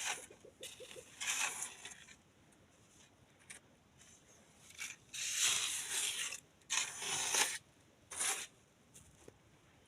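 Bristles sweeping cobwebs off a surface in several short, scratchy strokes with pauses between, the webs crackling as they come away.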